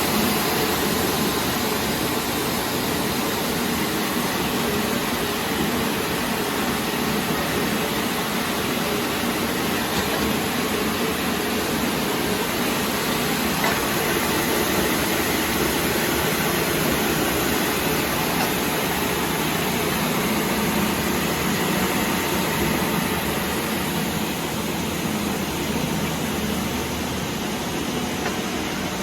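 Breadcrumb production-line machinery running with a steady, dense mechanical noise that holds an even level throughout.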